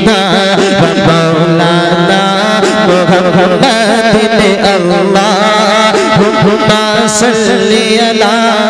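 A man's solo voice singing a naat into a microphone in long, wavering, ornamented melodic lines over a steady drone.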